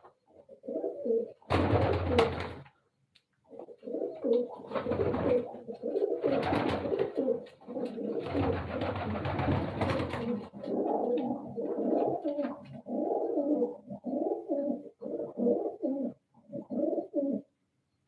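Domestic fancy pigeons cooing over and over in a small loft, a run of low pulsed coos. Several louder bursts of rustling noise break in during the first ten seconds, and the cooing stops shortly before the end.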